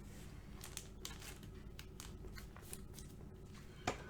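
Faint rustling and clicking of trading cards and plastic card holders being handled, with one sharper tap near the end, over a steady low hum.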